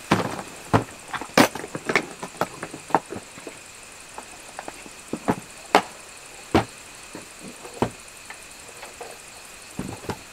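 A hard plastic case set down on grass and then opened and handled: a string of irregular clicks and knocks from latches, lid and contents, the sharpest at the start and about a second and a half in.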